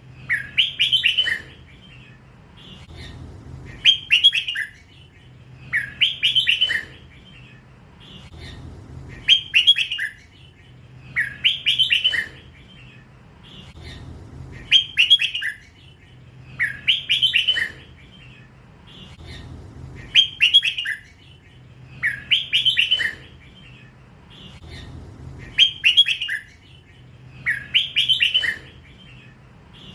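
Young hybrid red-whiskered bulbul singing its 'lak wai' song: a short, bright, warbled phrase repeated about every two seconds.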